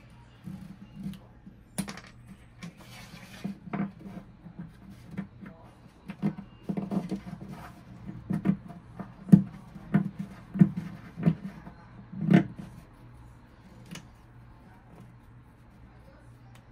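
A run of irregular knocks and clacks of hard objects being handled and struck, busiest and loudest between about six and twelve seconds in, then thinning out.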